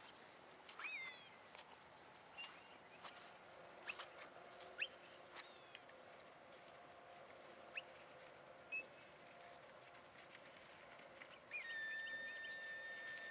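Faint outdoor quiet with scattered short chirps and gliding whistles, typical of birds. Near the end a steady high whistle tone starts and is held.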